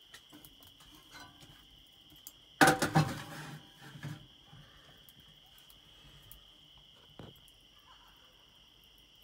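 Crickets chirping steadily throughout. About two and a half seconds in comes a loud clank and clatter of metal on metal as a cast iron skillet is set onto the top of a small steel wood stove, with a smaller knock a second later.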